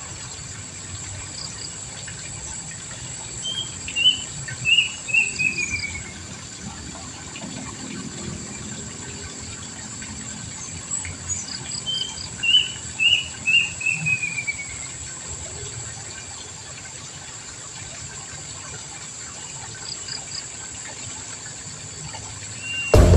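A bird singing two phrases, each a quick run of short notes falling in pitch, over a steady high-pitched insect drone.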